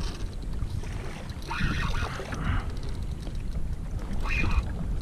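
Wind buffeting the microphone and water washing around a kayak on open sea, with short higher-pitched bursts about a second and a half in and again near the end.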